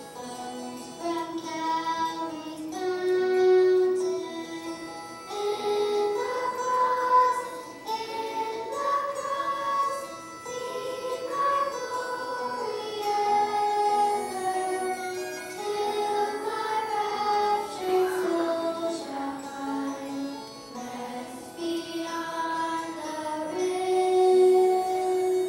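Children's choir singing a song over musical accompaniment, the melody moving through held notes.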